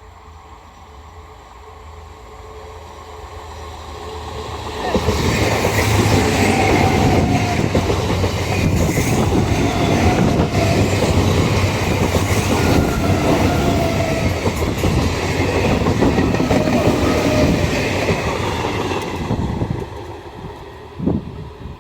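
A train passing close by: its rumble builds for about five seconds, then the loud, steady clickety-clack of wheels running over rail joints, which falls away near the end.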